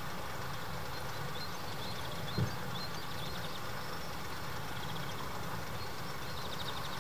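Faint high chirps and short trills of a small songbird over a steady low rumble, with one brief low thump about two and a half seconds in.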